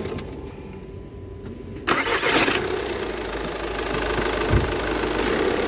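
1.6-litre common-rail diesel engine cranked by its starter and catching about two seconds in, then settling into a steady idle. The start is clean, without the starter-pinion grinding on the dual-mass flywheel that is being hunted.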